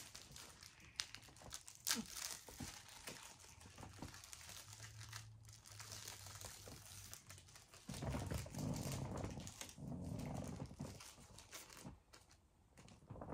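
Plastic candy wrappers crinkling as candies are unwrapped and handled, with scattered crackles and clicks, then a louder stretch of noise from about eight seconds in.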